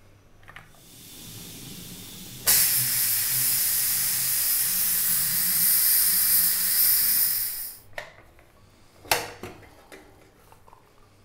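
Tefal pressure cooker's valve venting steam as pressure is released before opening: a faint hiss builds, then about two and a half seconds in a loud steady hiss bursts out for about five seconds and cuts off. A sharp click follows about a second later.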